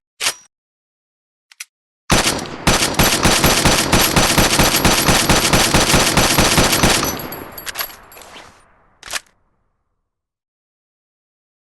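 An automatic rifle firing: a single shot, then a long full-auto burst of rapid, evenly spaced shots lasting about five seconds that trails off with echo, and one more shot near the end.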